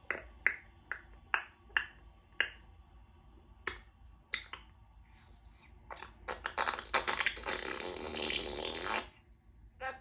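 Congo African grey parrot making a run of sharp clicks, then a raspy, drawn-out mimicked fart lasting about three seconds.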